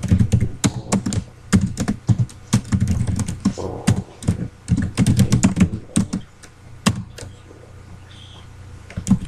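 Computer keyboard typing: quick runs of keystroke clicks. The typing pauses for a couple of seconds near the end, then a few more keys are struck.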